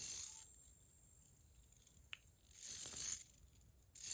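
Titanium fidget spinner spinning with a faint, steady, high-pitched ringing tone that keeps going. Brief rustling handling noises come about every second and a half, with a small click in between.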